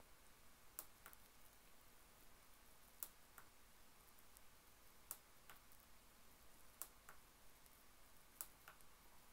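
Tactile push button on a breadboard being pressed repeatedly: five faint, sharp clicks about every two seconds, each followed a moment later by a softer click, against near silence.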